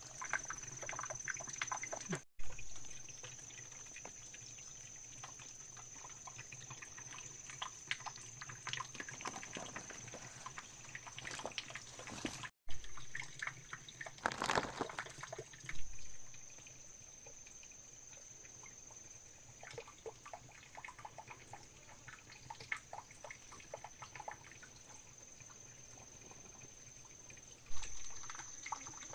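Water splashing and trickling, with scattered small knocks and a steady high-pitched tone underneath; the sound cuts out briefly twice.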